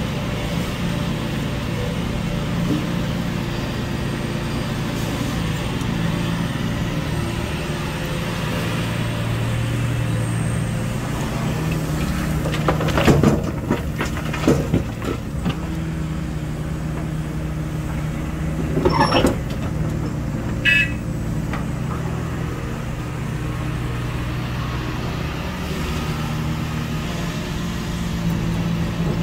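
Hitachi Zaxis 470R hydraulic excavator's diesel engine running steadily. About halfway through, a bucketload of rock crashes into the steel bed of a dump truck in a burst of heavy impacts, followed a few seconds later by two shorter sharp knocks.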